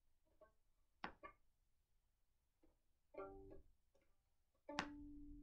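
Violin played with a bow: a few short, halting notes with pauses between them, then one steady held note near the end.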